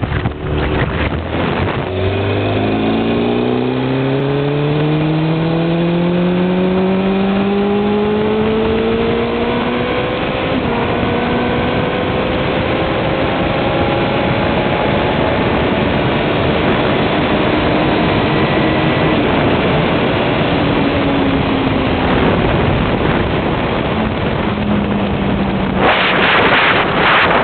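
Motorcycle engine pulling away and rising steadily in pitch for several seconds, then running at a fairly even pitch under way, over a constant rush of wind and road noise. Near the end a loud rush of wind hits the microphone.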